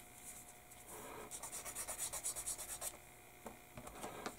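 A sanding stick rubbed over a small plastic model-kit part in gentle, quick back-and-forth swipes, about seven a second, from about a second in until about three seconds in. Near the end come a few faint ticks as the part is handled.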